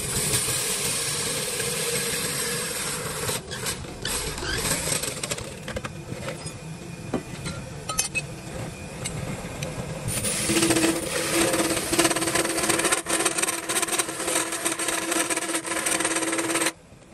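Woodworking tools working wood: continuous scraping and rattling with scattered clicks, joined by a steady machine hum about ten seconds in. It cuts off abruptly near the end.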